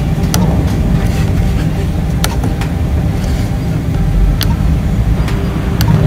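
Printer control-panel buttons clicking under a finger, four separate presses, over a steady low rumble.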